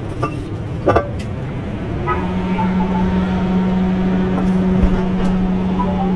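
A steady motor hum at one constant pitch starts about two seconds in and holds, over street traffic noise; a few sharp clicks come about a second in.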